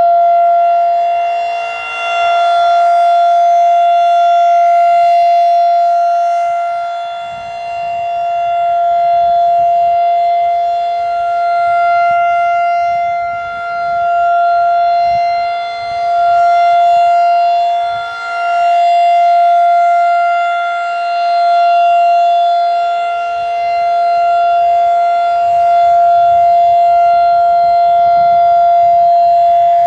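Federal Signal 2001-DC roundback outdoor warning siren sounding the steady alert tone at a fixed pitch. The sound swells and fades every few seconds as the rotating horn sweeps past.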